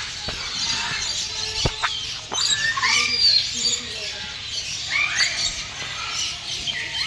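Many birds chirping and squawking together, with short hooked calls repeating every second or so over a dense high chatter. Two sharp clicks come about two seconds in.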